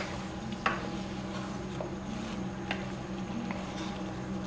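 A wooden spatula stirs mutton pieces frying in a karahi over high heat, with a light sizzle and several sharp knocks of the spatula against the pan. A steady low hum runs underneath.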